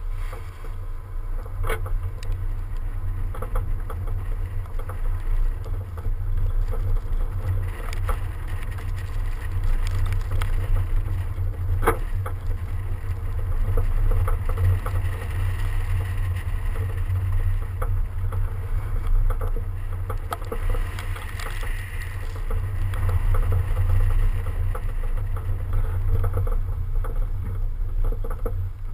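BMW 335d driving on a snow-covered course, heard from a camera mounted low on the car's side: a heavy, steady wind and road rumble, with a few sharp knocks.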